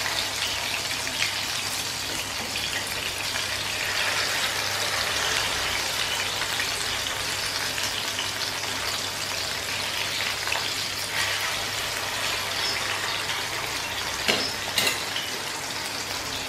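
Masala-marinated fish pieces shallow-frying in hot oil in a pan: a steady, crackling sizzle. A couple of sharp clicks near the end.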